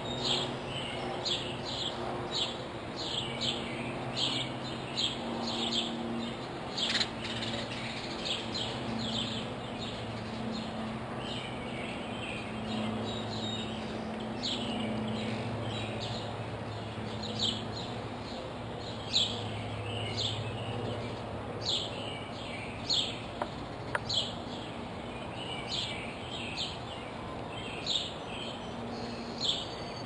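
Songbirds chirping: runs of quick high chirps, each dropping sharply in pitch, repeating throughout. A low steady hum sits underneath.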